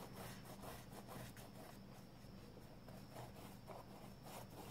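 Faint, repeated brush strokes of a paintbrush dragging paint back and forth across a stretched canvas, over a low steady hum.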